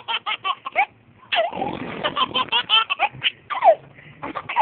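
A baby laughing in quick runs of short, high giggles, with a brief pause about a second in before the laughter picks up again.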